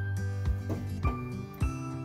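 Background music with a steady beat, a little under two beats a second, under held melodic notes.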